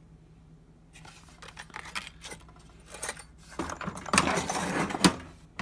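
Small metal hand tools clinking and rattling as they are handled in a toolbox drawer: scattered light clicks at first, then a busier clatter in the second half that ends with a sharp knock.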